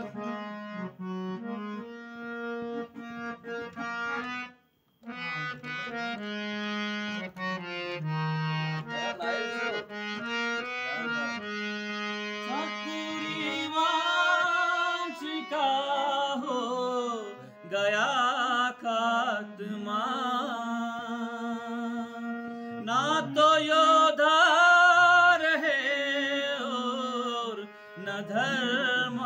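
Harmonium playing a melody over a held low note, with a brief break about five seconds in. About halfway through, a man's voice starts singing along with it.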